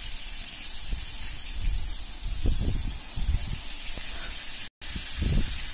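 Hot ghee sizzling steadily in a steel kadhai as batter-coated raw-banana vadas deep-fry, with a few soft low knocks. The sound cuts out briefly near the end.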